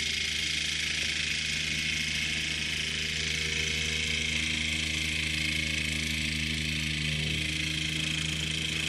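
Diesel engine of a JCB 4CX Super backhoe loader running steadily at a low, even speed, its note shifting slightly about seven seconds in.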